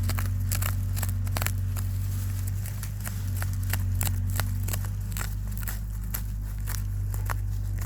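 Irregular scrapes and crackles of a tree branch digging through soil and dry leaves to unearth a deodeok root, over a steady low hum.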